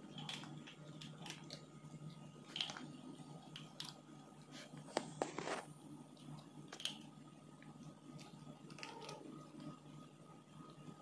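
Two cats crunching dry kibble off a tiled floor: scattered sharp crunches and clicks, with a louder cluster about halfway through.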